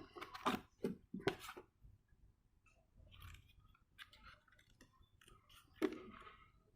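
Scissors snipping through paper. There are a few sharp cuts near the start, then quieter, scattered snips, and one louder snip near the end.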